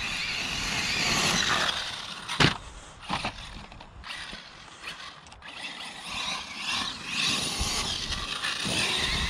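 Arrma Mojave RC desert truck's electric motor and drivetrain whining, rising and falling as it accelerates and slows on grass, with a sharp thump about two and a half seconds in and a lighter one just after.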